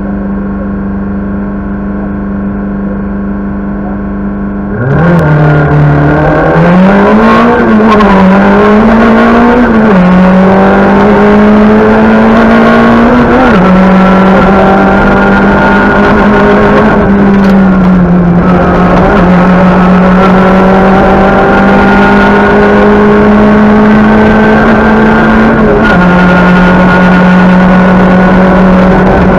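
Talbot Samba Groupe B rally car's engine heard from inside the cabin. It holds a steady note for about five seconds, then gets much louder as the car pulls away hard, the pitch climbing in each gear and dropping sharply at each upshift. It then runs at high revs, with a few more shifts and lifts.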